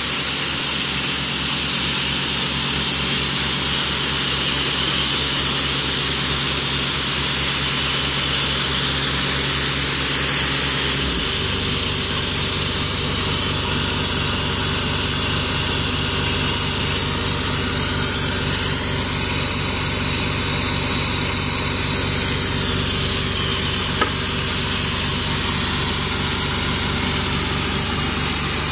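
Diesel engine of an Ingersoll Rand 7/20 towable air compressor running steadily, with a hiss over it. About eleven seconds in the engine note shifts and grows heavier, then holds steady.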